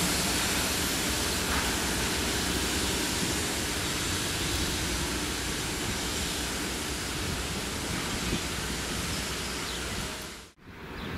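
Rail-grinding train URR-112-5A working the track: a steady loud hiss of grinding stones on the rails over a low rumble, slowly easing as the train moves away. The sound cuts out abruptly about ten and a half seconds in, then a quieter hiss returns.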